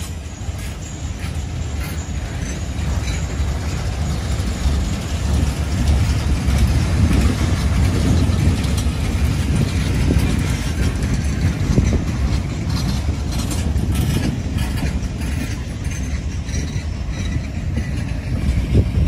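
Freight train of bottle (torpedo) cars rolling past on the rails: a steady low rumble of wheels and trucks that swells a little in the middle and eases slightly near the end.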